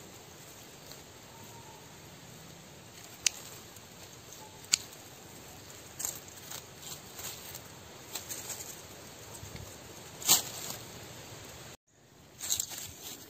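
Pruning shears snipping through roots, with two sharp clicks, then crackling and rustling of soil and dry leaf litter as the sapling's root ball is worked loose, with a louder crackly crunch a little after ten seconds.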